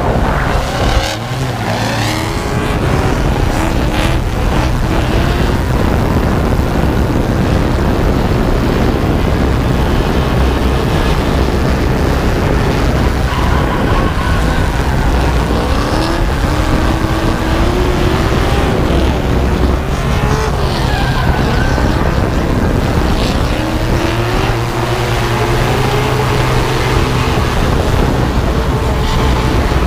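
Drift cars' engines revving up and down with tire squeal and skidding, under a steady low hum from the drone carrying the camera.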